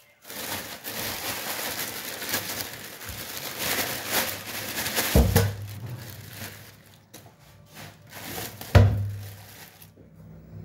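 Plastic bags crinkling and rustling as a whole fish is unwrapped in a stainless steel sink. Two sharp thuds against the steel sink, about five and about nine seconds in, each followed by a short low ring.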